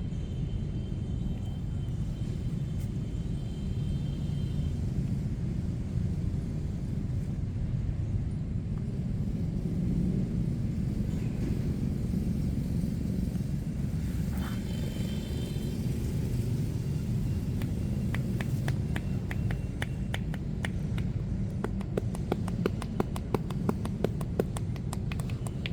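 Steady low rumble of street traffic. Brief high tones come in near the start and again mid-way, and in the last seven seconds a fast run of sharp clicks or taps, about four a second, grows louder toward the end.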